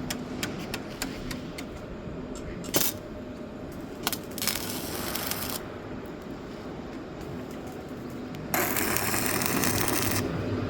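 Scattered sharp metallic clicks and taps from work on a steel excavator bucket. About eight and a half seconds in, an arc welder strikes up with a steady crackling hiss, breaking off briefly near the end.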